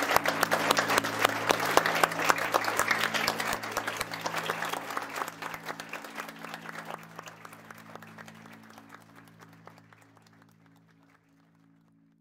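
Crowd of guests applauding, dying away steadily over about ten seconds, over quiet music with low held notes.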